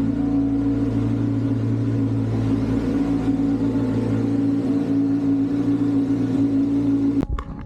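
Kawasaki Z900's inline-four engine idling steadily at an even speed. It cuts off abruptly near the end, where guitar music comes in.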